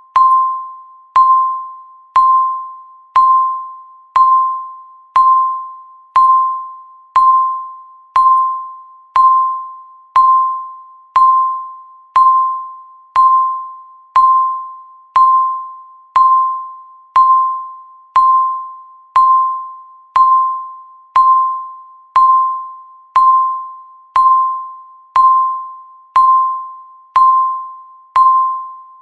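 Countdown timer beeping once a second: each beep is a single clear electronic tone with a sharp start that fades away before the next, marking one more second gone.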